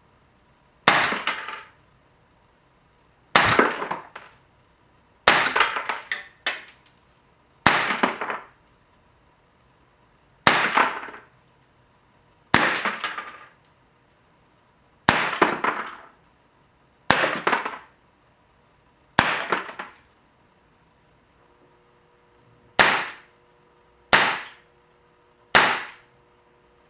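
A series of about twelve sharp impacts, roughly one every two seconds, each trailing off over a fraction of a second.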